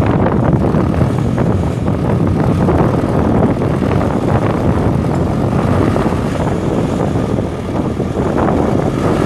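The 1992 John Deere 410D backhoe's 4045T 4.5-litre four-cylinder turbo diesel engine running steadily.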